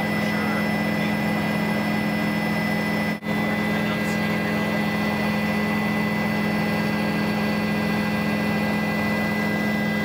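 Aircraft engine drone heard from inside the cabin: a steady, loud hum with several fixed tones over a broad rush of noise, dropping out for an instant about three seconds in.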